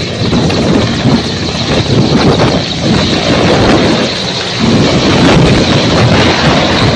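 Mil twin-turbine military transport helicopter lifting off and climbing away, its rotor and turbines giving a loud, dense, rushing roar with a pulsing low rumble.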